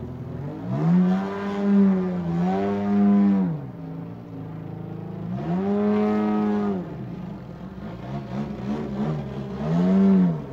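Rebuilt DA-120 twin-cylinder two-stroke gas engine, with a canister exhaust and a Falcon propeller, on an aerobatic RC Extra in flight. It is throttled up and down: three long bursts rise in pitch, hold and fall away, with short blips of throttle between the second and third.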